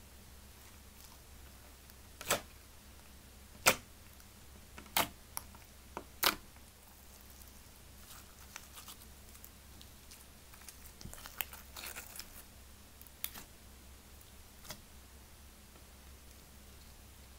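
Clear slime mixed with shredded foam pumpkin squishy being stretched, folded and pressed by hand: four sharp pops in the first half, then softer crackling and a couple of smaller pops.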